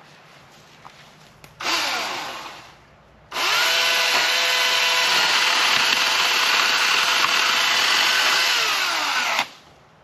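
Husqvarna Power Axe 350i battery chainsaw: a short burst of throttle about a second and a half in that winds down, then run at steady full speed for about six seconds while cutting into a tree trunk, its whine falling away as the trigger is released near the end.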